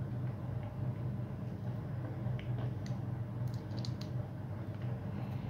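A screwdriver working the small steel screws of a 2.5cc model nitro engine's backplate, giving a few light metallic clicks around the middle, over a steady low hum.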